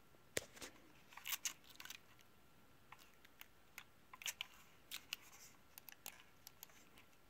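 Faint crinkling and small clicks from the plastic protective film on a gaming mouse as it is turned over in the hand, in scattered short bursts.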